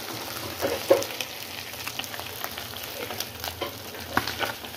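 Amodi fish frying in mustard oil in a kadai: a steady sizzle dotted with small pops, as a spatula stirs and scrapes the pieces around the pan.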